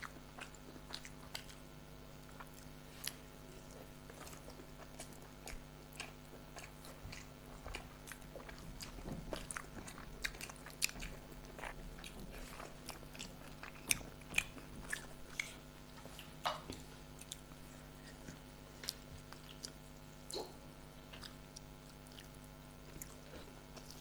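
Chewing and biting while eating rice and spicy chicken curry: scattered small clicks and mouth sounds, a few sharper ones, over a steady low hum.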